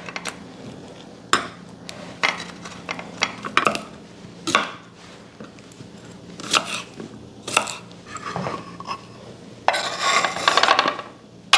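Kitchen knife cutting food on a wooden cutting board, including slicing a cucumber: irregular knocks of the blade against the board, with a short scraping rustle near the end.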